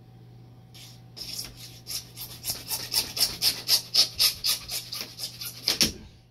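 Hacksaw cutting through PVC pipe: rhythmic back-and-forth rasping strokes, about four a second, starting about a second in and getting louder, then stopping with a thump near the end.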